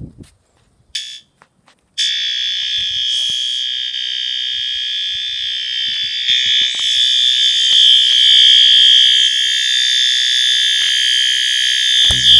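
System Sensor P2RL horn strobe sounding its continuous tone at high volume, incredibly loud. A short blip comes about a second in, then a steady, unbroken high-pitched tone starts about two seconds in and holds.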